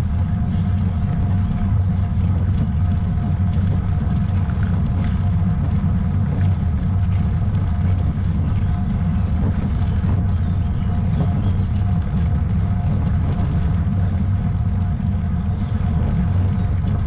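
Steady low rumble of wind buffeting and road noise from a moving ride, with a faint steady whine above it.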